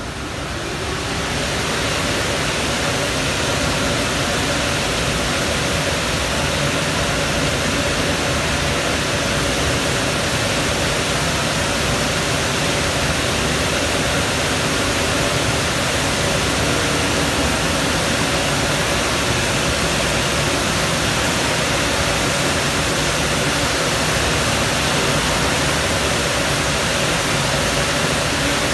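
Automatic tunnel car wash's blower dryers running: a loud, steady rush of air with a faint motor hum under it, swelling up over the first couple of seconds and then holding.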